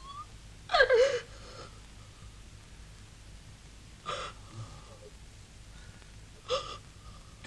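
A woman sobbing in grief: three short, gasping sobs, the loudest about a second in and two fainter ones near the middle and near the end.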